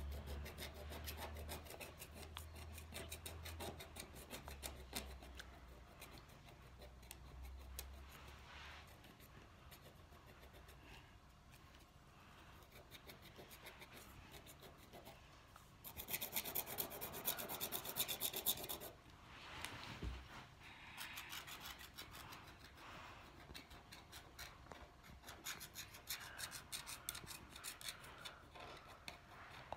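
Wooden stylus scratching rainbow scratch-art paper in quick back-and-forth hatching strokes, with a louder, busier run of scratching a little past halfway.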